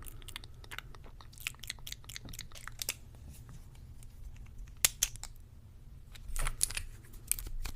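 Scattered soft clicks and crackles close to the microphone, with a sharper click about five seconds in and a short cluster of them near the end.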